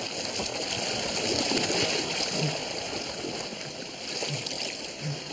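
Pool water splashing and churning steadily as swimmers race to the wall.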